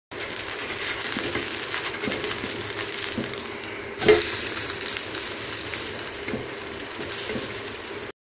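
Vegetable pancake batter sizzling in oil on a nonstick griddle, with a wooden spatula working under it. Just before four seconds in the sizzle thins, then a sharp slap as the pancake is flipped onto its other side, and the sizzling picks up again.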